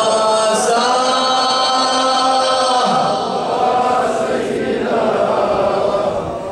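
Slow, mournful Arabic chanting of an Ashura lament, sung in long held notes. The voices dip briefly twice.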